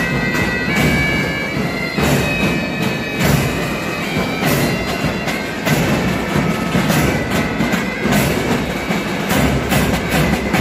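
Pipe band playing: bagpipes sound a held melody over a marching beat on snare, tenor and bass drums. The pipe tones are clearest in the first few seconds; after that the drum strikes stand out.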